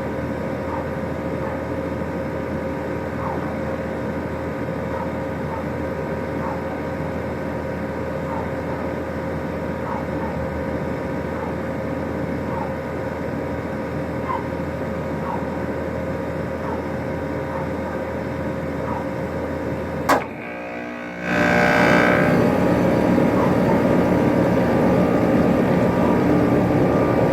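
Steady hum of running air-conditioning equipment. About 20 seconds in there is a click, and then the new 2018 Rheem Classic 2.5-ton central air conditioner condenser starts up, its scroll compressor and outdoor fan coming on together and running noticeably louder and steady: a smooth first startup.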